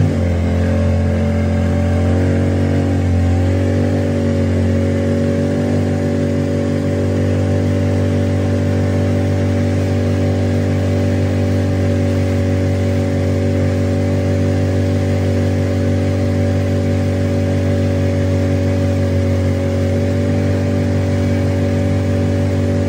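Small motorboat's engine running steadily at cruising speed, a low even hum whose pitch shifts slightly in the first few seconds and then holds steady.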